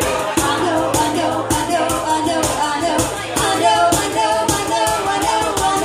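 Live acoustic band playing a slow song on acoustic guitar, congas and keyboard, with percussion ticking in an even beat and a low note held through about the first half.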